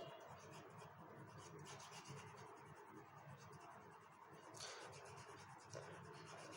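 Faint scratching of a pen drawing quick shading lines on paper, a little louder about four and a half seconds in.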